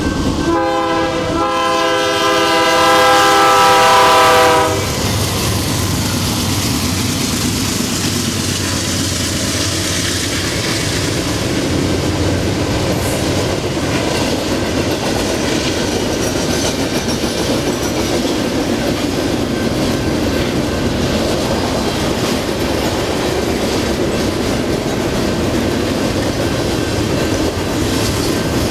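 A locomotive horn sounds one long chord of several notes for about four seconds, then a double-stack freight train rolls past at speed with a steady rumble and clatter of wheels over the rail joints.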